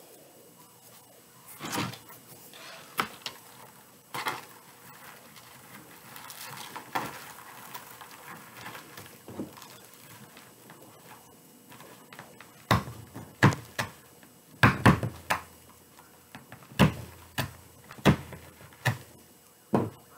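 Handling noise from a burlap and deco mesh wreath being handled and adjusted on a tabletop cutting mat: irregular knocks and thumps, with soft rustling in between and a run of louder, sharper knocks in the second half.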